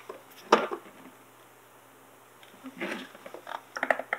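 Handling of a plastic RC truck body on a work mat: a light knock about half a second in, then a run of small taps and clicks near the end as the body is picked up and the vinyl wrap pressed down.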